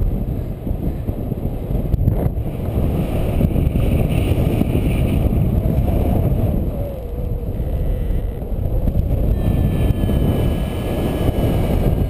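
Airflow buffeting the camera microphone of a paraglider in flight: a loud, steady low rush. Faint steady high tones come in about two-thirds through.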